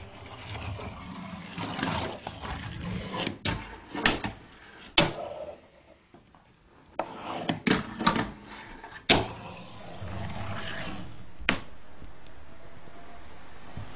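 A string of sharp clacks and knocks, about eight of them irregularly spaced a second or more apart, over a low rumbling background that drops almost to silence briefly in the middle.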